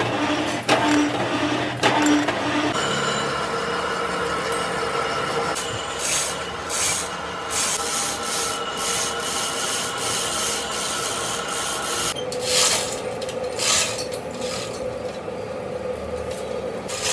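Lathe running with a steady whine while metal is rubbed or scraped against the turning crankshaft, with a few louder scraping strokes.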